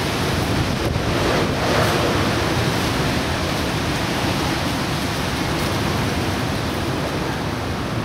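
Strong wind blowing, a steady dense rushing noise that swells a little about two seconds in.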